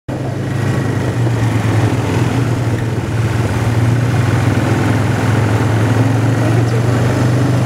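ATV engine running steadily, a low hum under a constant rushing noise; the sound cuts in suddenly at the start.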